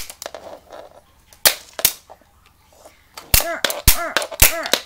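Sharp clicks and knocks of small hard objects being handled and set down on a wooden floor, a few apart at first, then a quicker run near the end, with short squeaks that rise and fall in pitch after several of the later clicks.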